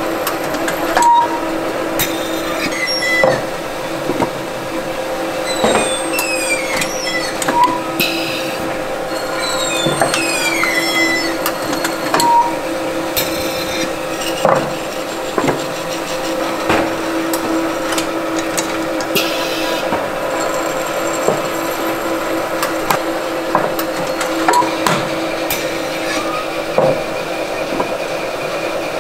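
Clay-pot forming machinery running in a ceramics factory: a steady machine hum with irregular sharp knocks and clanks every second or two, and a few brief falling squeals in the first half.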